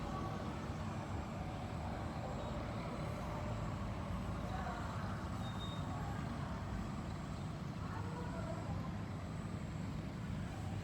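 Large bus diesel engine running steadily at low revs, with faint voices in the background.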